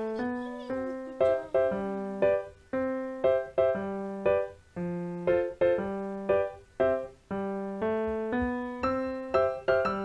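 Background piano music: a slow melody of single notes, each struck and dying away, at about two notes a second.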